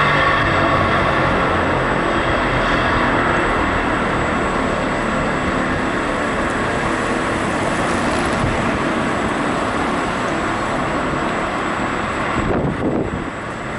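Loud, steady wind noise on the microphone mixed with passing traffic, heard while riding an electric unicycle; an engine hum fades over the first few seconds.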